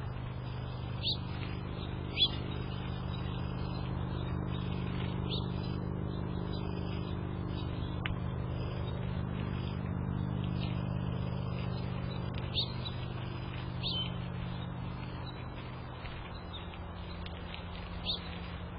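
Small birds giving short, sharp chirps about six times, over a steady low engine drone that swells toward the middle and eases off near the end.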